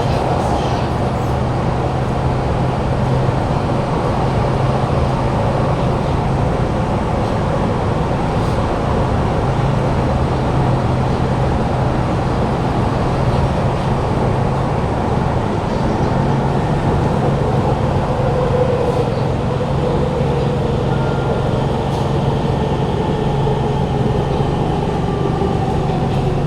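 Inside a Kawasaki Heavy Industries C151 MRT carriage under way: steady rumble of the running train over a constant loud hum from the air-conditioning and ventilation. This carriage's own traction motor is faulty and gives no whine of its own. A faint falling whine appears in the last several seconds, which the owner takes to come from the motor car next to it.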